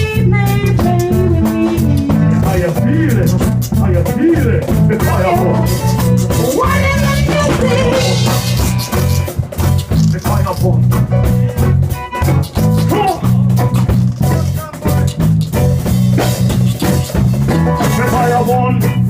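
A live band playing a reggae-style groove, a heavy repeating bass line under drums, shaker and melodic instruments, before the vocals come in.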